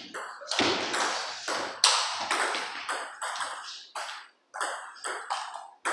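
Table tennis balls being struck back and forth in rallies, celluloid-type plastic ball on rubber paddles and tabletops: a quick, irregular string of sharp knocks, about three a second, each ringing briefly in the room, with a short pause about two-thirds of the way through.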